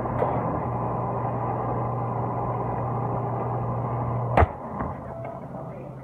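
Bosch dishwasher running mid-cycle, a steady hum with wash noise. A sharp click comes about four seconds in, after which the running sound drops away to a much quieter level.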